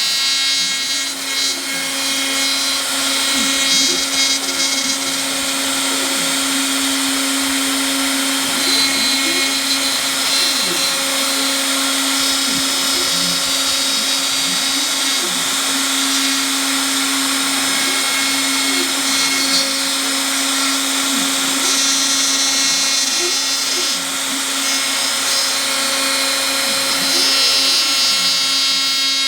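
Home-made CNC router running: a steady high whine from the spindle motor, with shorter whines gliding up and down in pitch over and over as the axes move.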